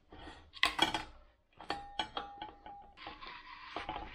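A metal rod knocking and scraping inside a motorcycle rear wheel hub, with short metallic ringing between the knocks, as the old wheel seal is worked at; about three seconds in it gives way to a cloth rubbing inside the hub.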